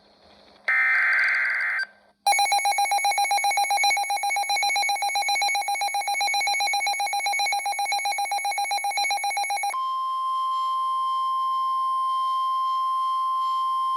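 NOAA Weather Radio EAS alert: the last of the SAME digital header bursts screeches briefly about a second in. Then a fast-pulsing alarm tone beeps for several seconds, and near the end it turns into the steady 1050 Hz warning alarm tone that announces a new weather warning.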